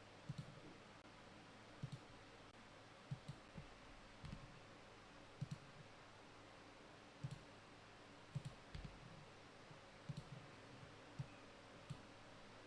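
Faint single clicks at irregular intervals, about a dozen, roughly one every second, over a near-silent background hiss.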